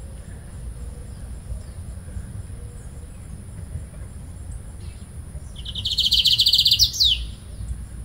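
Lined seedeater singing one short phrase more than halfway in: a fast, buzzy, high trill of about a second and a half that ends in a quick downward sweep. This is the plain song without the 'virada' flourish, heard over a low steady rumble.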